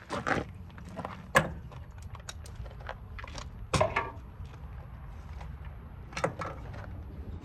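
Scattered clinks and knocks of metal tools being handled against a metal parking lot light fixture, with a few sharper knocks among them.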